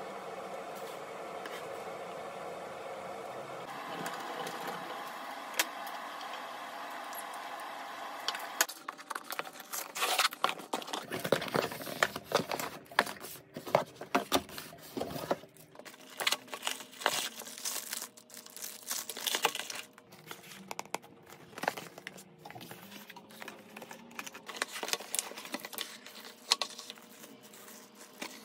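Cardboard boxes and plastic wrapping being unpacked by hand: crinkling, rustling and sharp clicks and taps, irregular and sometimes loud. Before this starts, about eight seconds in, there is only a steady background sound.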